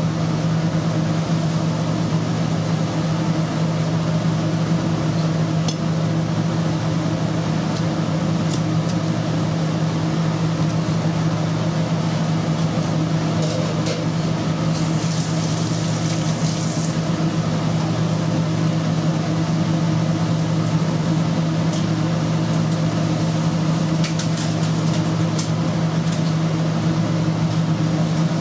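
Steady electric hum of commercial kitchen equipment, with a few faint light clicks now and then, more of them near the end, and a brief soft hiss about halfway through.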